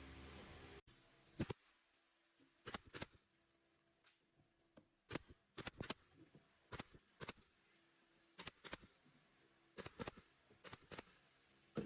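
A steady noise cuts off abruptly just under a second in. It is followed by light, scattered taps and clicks, often in quick pairs, with short pauses between them.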